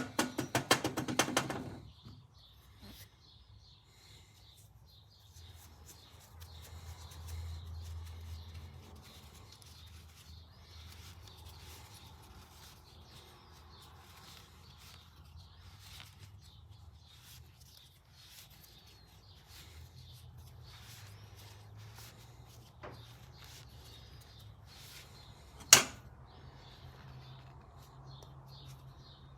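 Small throttle-assembly parts being handled during cleaning: a quick rattle of clicks in the first couple of seconds, then faint scattered handling noises over a low steady hum, with one sharp click near the end.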